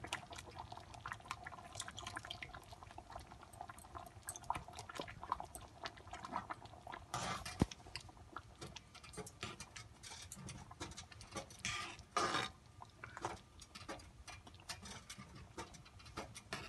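A spoon stirring a thick jaggery, rice and coconut-milk mixture in a steel pan, scraping against the pan a few times, over a faint crackle of the simmering syrup.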